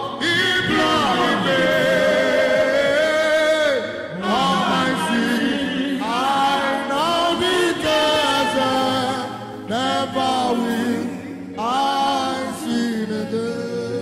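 Gospel worship song: voices singing long phrases with held and sliding notes over a steady low backing.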